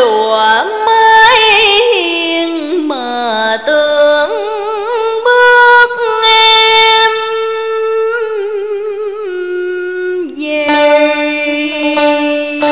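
Female vocalist singing a slow Vietnamese tân cổ (cải lương) melody: long held notes with wide vibrato and sliding ornaments, no clear words. A traditional ensemble accompanies her, growing busier near the end.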